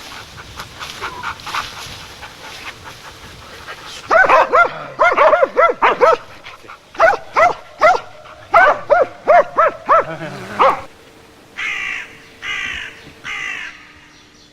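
A dog barking in quick runs of sharp barks, several a second, then three longer, quieter drawn-out calls near the end.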